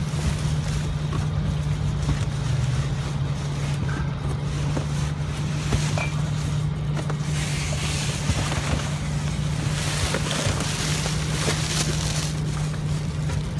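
Steady low machine hum, with plastic trash bags rustling and a few small knocks as rubbish is handled inside a metal dumpster, the rustling stronger in the second half.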